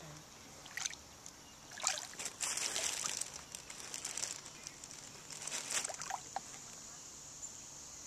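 Water sloshing and splashing at the surface in several short bursts, as fish and a turtle feed on floating food.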